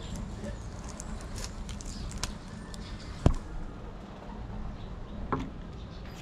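Handling noise as a cardboard rod tag and a padded rod bag are moved over a wooden table: scattered light clicks and rustles, one sharp knock about three seconds in and a fainter one near the end, over a steady low background rumble.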